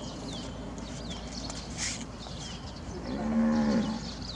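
A cow mooing once near the end, a single steady call lasting under a second.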